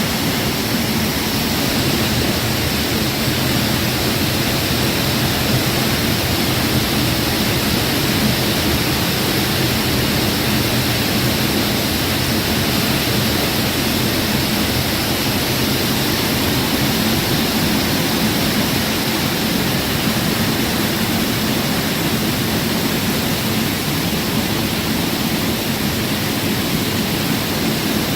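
Lower South Falls, a waterfall, crashing into its pool: a loud, steady rush of falling water with no breaks.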